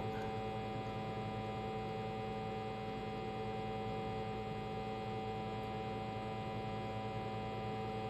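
Steady low hum of a 100 Hz sine test tone played through a wah pedal circuit, with several fainter overtones above it and no change in level.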